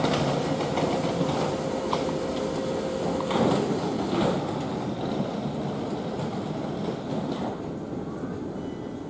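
Class 444 Siemens Desiro electric multiple unit standing at the platform, its onboard equipment running with a steady hum. A steady whine stops about three and a half seconds in.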